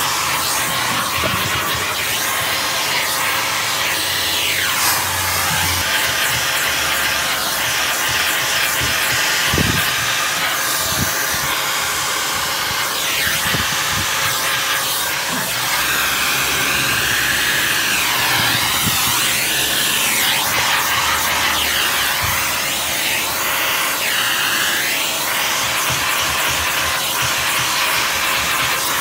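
Vacuum cleaner running steadily, its pitch shifting up and down as the upholstery nozzle is dragged across a carpet floor mat.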